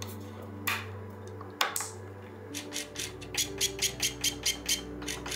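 Mechanical clicking from hands-on work on a bicycle: two sharp clicks, then a quick even run of about ten clicks at roughly seven a second, over a soft steady musical drone.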